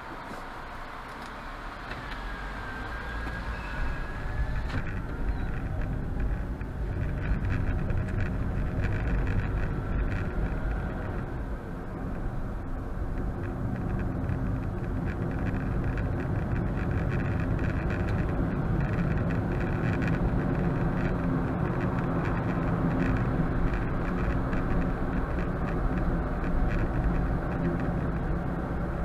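Car interior engine and road noise picked up by a dash cam's microphone: a steady low rumble that grows louder over the first several seconds, then holds.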